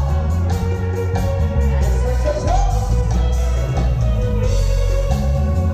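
Chilena dance music played loud by a live band through the hall's sound system, with heavy bass and a steady beat.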